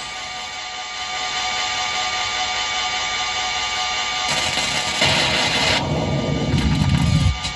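Behringer Edge synthesizer run through distortion, a resonator and reverb, playing a dense, noisy drone with many held tones. About five seconds in, a strong low swell comes in and cuts off suddenly near the end.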